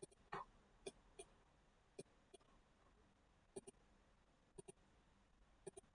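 Faint computer mouse clicks, many in quick press-and-release pairs, spaced about a second apart, as pen and eraser options are picked from a slide-show menu.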